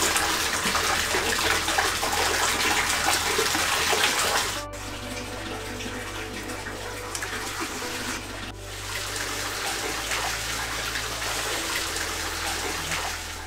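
Water running and splashing: a tap filling a wooden bath bucket and water being poured from the bucket over a bather. It is loudest for the first four seconds or so, then softer.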